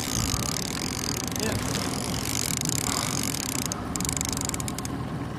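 Small boat motor running steadily under wind and water noise while a fishing reel is wound in, with a run of fine clicks about four seconds in.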